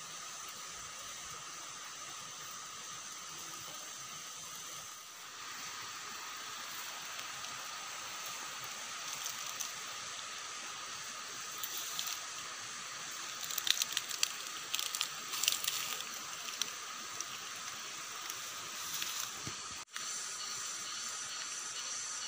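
Steady outdoor ambience of insects trilling over a low hiss, with a cluster of brief crackles in the middle.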